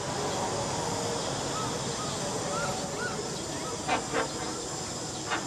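Short animal calls over a steady outdoor background hiss: a run of quick, arching chirps about two a second, then a pair of brief squawks about four seconds in and another near the end.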